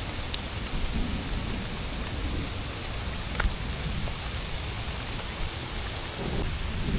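Steady rain falling through the forest, an even hiss with a few separate drop ticks.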